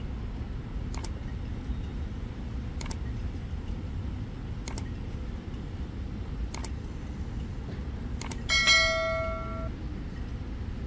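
Five short, sharp mouse-click sound effects about two seconds apart, then a bright notification-bell ding that rings for about a second near the end and is the loudest sound, from a subscribe-button animation. Underneath is a steady low rumble of city traffic and fountain water.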